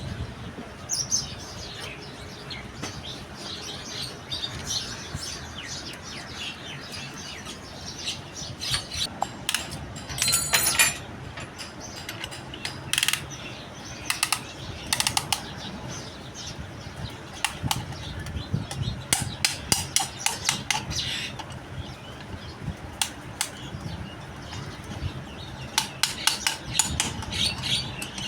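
Irregular sharp clicks and light metallic clinks from hand-fitting piston rings and handling the metal parts of a truck air compressor's piston, in clusters with short pauses between them.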